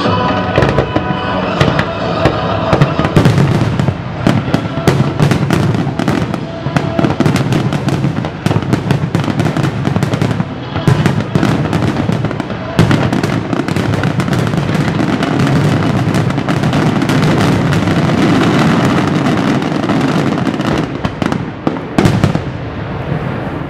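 Aerial fireworks shells bursting in quick succession with dense crackling, building to a near-continuous barrage in the middle and thinning out near the end.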